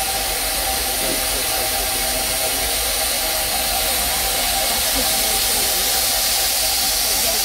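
Narrow-gauge steam locomotive standing with a steady hiss of escaping steam. The hiss grows stronger and brighter from about halfway through.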